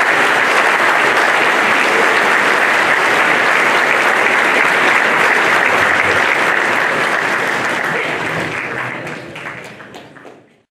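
Audience applauding steadily, then thinning over the last few seconds into a few scattered claps before cutting off.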